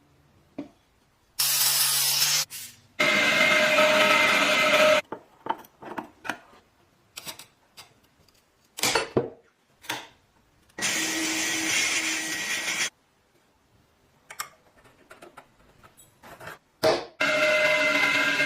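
A small power tool grinding or sanding the metal of an old clothes iron, in several spells of a second or two that start and stop abruptly, with light taps and knocks between.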